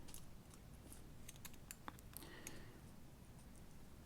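Faint, scattered clicks of a lock pick working the pins of a stubborn lock that is not opening, the clearest click a little under two seconds in.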